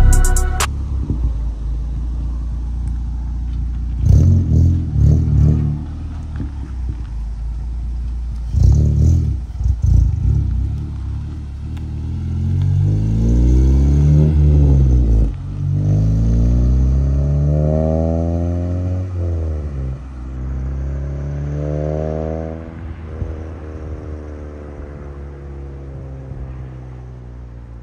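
Honda Civic Si's 2.4-litre K24 four-cylinder with a catless downpipe, revved in a few short bursts and then driven away at full throttle. The revs climb and drop back at each of three upshifts, and the exhaust grows fainter as the car pulls off into the distance.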